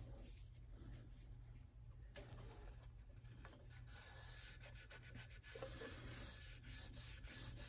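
Faint rubbing of a folded, lubricant-soaked paper towel wiped along the metal glide-bar track of a Prince Neos 1000 stringing machine, with a few light ticks.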